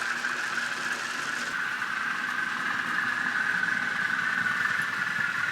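Recorded diesel engine sound from the DCC sound decoder in an N gauge model of LMS diesel locomotive 10001, running steadily.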